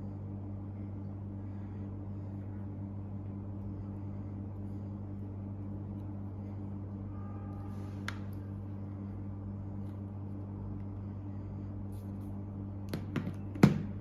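Steady low hum, with a single click about eight seconds in and a few sharp knocks near the end, the last one the loudest.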